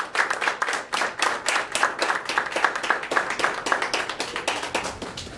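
Audience applause: many hands clapping, thinning out and fading away near the end.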